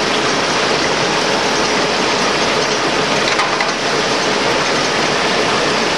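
Six-spindle Conomatic automatic lathe running in production: a steady, dense mechanical din of turning spindles and cutting tools with an even hiss, and a faint steady hum underneath.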